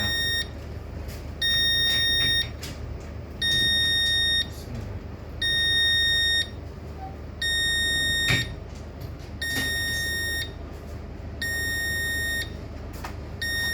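Demco fire alarm panel's buzzer beeping: one-second beeps of a single high tone, one every two seconds, just after the panel has been powered up and before it is reset. A steady low hum runs underneath, and a sharp knock comes about eight seconds in.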